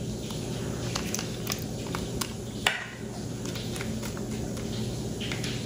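Small scattered clicks and scrapes of a screwdriver working the screw terminals of a 3D-printer mainboard as power wires are fitted, with one sharper click about two and a half seconds in, over a steady low hum.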